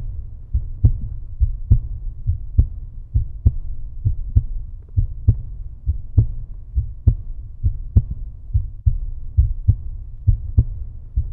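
Outro music reduced to a deep, bass-heavy beat: low thumps about twice a second with little above the bass.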